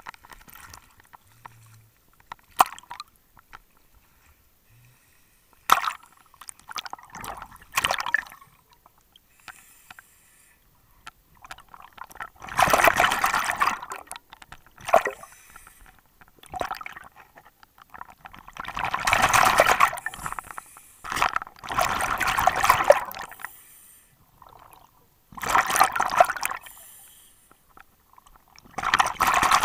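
A scuba diver's exhaled breath bubbling out of the regulator underwater, in loud bursts of one to two seconds every few seconds. Before that, water sloshes and gurgles around the camera as it goes under the surface.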